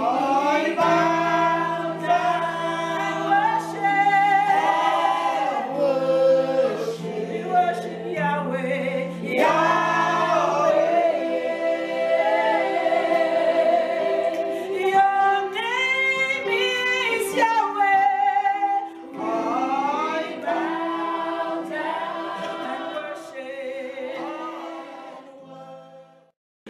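A woman singing a slow worship song over held low accompanying notes, the music fading out near the end.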